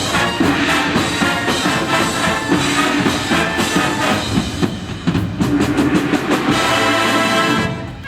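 High school wind band playing with drum kit and percussion. The brass and winds move into a held chord over repeated drum hits and stop just before the end.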